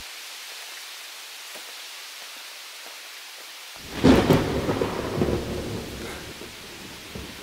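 Steady rain hiss, then about four seconds in a sudden loud crack of thunder that rolls into a rumble and fades over a couple of seconds. This is the thunderstorm that opens a song.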